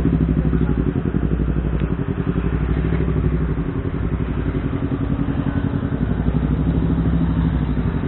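Sport motorcycles idling close by, a steady rapid exhaust pulse that holds even throughout.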